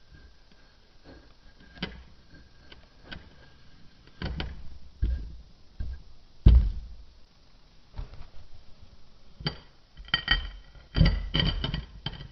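Clear glass rod tamping kinetic sand packed in a wine glass: soft taps and dull thuds, the loudest a low thump about six and a half seconds in. Near the end comes a quick run of sharper clinks with a slight glassy ring.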